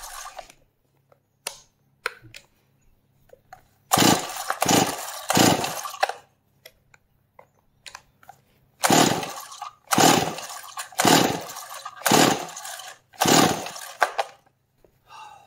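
Stihl MS260 two-stroke chainsaw being pull-started: the recoil starter rope rasps as the engine cranks over, three pulls about four seconds in and five more in quick succession from about nine seconds, and it never catches. The saw won't start because it has a scored piston with a seized ring.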